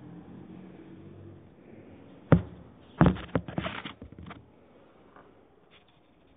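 A single sharp knock a little over two seconds in, then about a second of quick clattering knocks, over a faint low hum.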